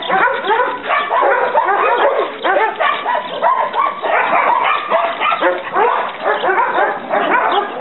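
A pack of shelter dogs barking together, a dense run of overlapping barks that never lets up.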